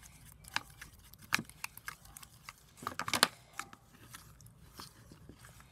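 Thick glue slime being stirred with a fork in a plastic container as the Tide activator is worked in: irregular sticky squelches and sharp clicks of the fork against the plastic, with a quick cluster of them about three seconds in.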